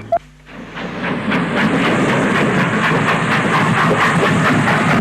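Steam locomotive passing close at speed: fast, even exhaust beats over a steady rumble and rail clatter, building up about half a second in.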